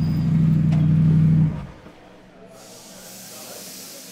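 GT race car engine running at a steady pitch, cutting off suddenly about one and a half seconds in. About a second later comes a hiss of air lasting around two seconds.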